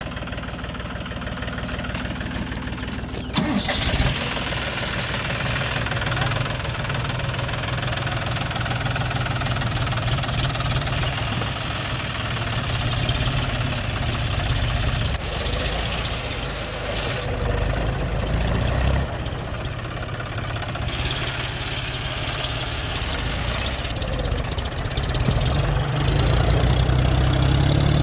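Diesel tractor engine running under load with a steady low rumble. A sharp knock sounds about three and a half seconds in, and the engine grows louder near the end.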